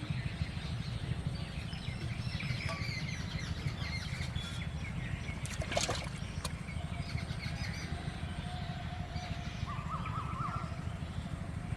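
Small birds chirping and twittering over a steady low rumble, with one brief sharp click about six seconds in.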